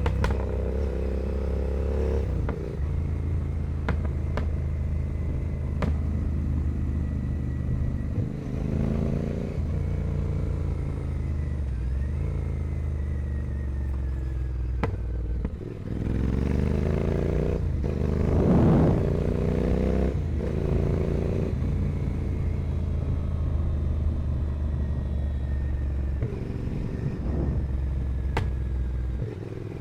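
Royal Enfield Continental GT 650 parallel-twin engine through a Carbox carbon 2-into-1 racing exhaust while riding. The engine note rises and falls with the throttle, with a strong rev-up just past the middle, and a few sharp clicks.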